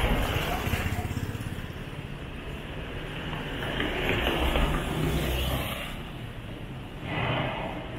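Street traffic: cars and motorcycles passing. Their engine and tyre noise swells near the start and again about four to five seconds in.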